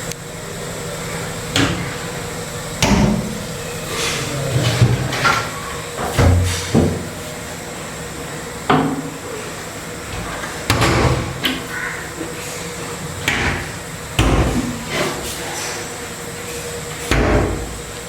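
A series of about fourteen short knocks and bangs at irregular intervals, some with a low thud, over a steady faint hum.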